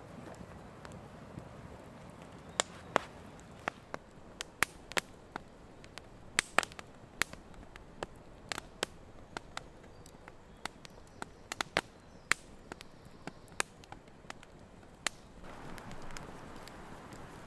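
Wood campfire crackling: irregular sharp pops and snaps over a low hiss. A louder, steadier hiss comes in near the end.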